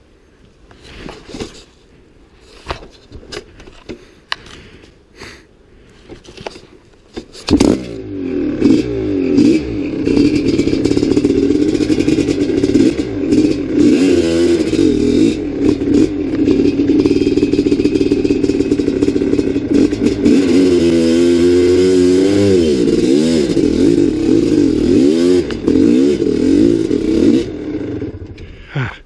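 Dirt bike engine revving hard under load on a steep, loose hill climb, the revs rising and falling as the rear wheel hunts for traction. It comes in suddenly about a quarter of the way in, after some light scuffing and clicks, and drops away near the end when the bike stops against a tree.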